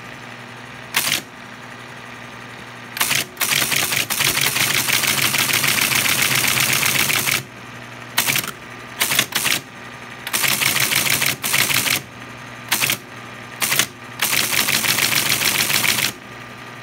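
Teletype ASR-33 printing characters in bursts of rapid mechanical clatter: one long run of about four seconds, then several shorter runs, with a steady low motor hum between the bursts.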